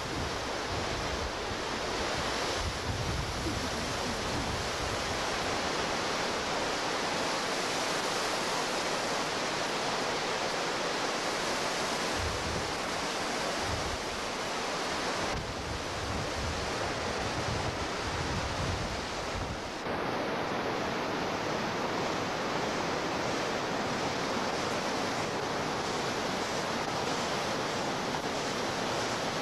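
Whitewater rapids rushing: a steady, even noise of churning river water, with low wind buffeting on the microphone through the first two-thirds.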